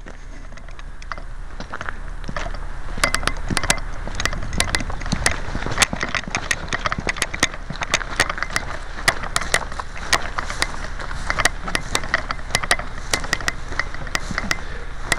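Footsteps and rustling through dry grass and brush, with many irregular sharp cracks and clicks, several a second, getting louder over the first few seconds as the movement picks up.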